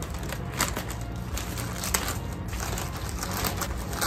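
Scissors cutting through a black plastic courier pouch, the thick plastic crinkling and crunching in irregular bursts as it is cut and handled.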